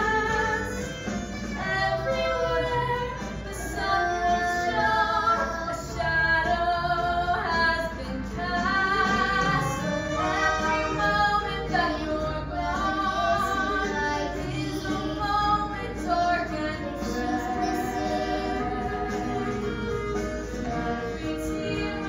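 A female voice singing a solo number from a stage musical over instrumental accompaniment, with some long, wavering held notes.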